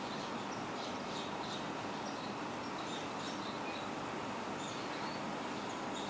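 Barn swallow nestlings about a week old giving faint, short, high begging chirps while a parent feeds them at the nest, over a steady background hiss. The chirps come thickly at first and then more sparsely.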